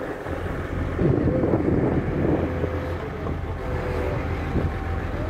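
Heavy equipment engine running steadily at the site, a constant low hum, with wind buffeting the microphone.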